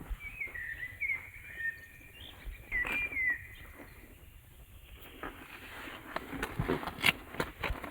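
Small bird chirping in short, warbling phrases in the first few seconds, followed from about halfway by a run of light clicks and taps.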